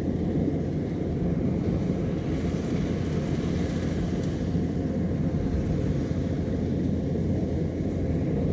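Kubota DC-105X rice combine harvester running steadily while cutting standing rice, its diesel engine and machinery making an even low drone.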